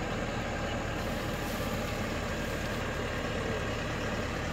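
Vehicle engine running steadily, a constant low hum.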